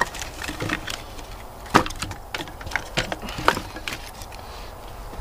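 Small split pieces of cedar knocking and clattering together as they are picked up and moved by hand. It is a string of short, sharp wooden knocks, with the loudest a little under two seconds in and another about three and a half seconds in.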